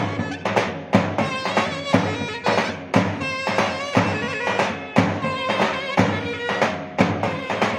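Mehter-style Turkish band music: a shrill zurna melody over heavy davul drum beats about once a second, with lighter strokes between.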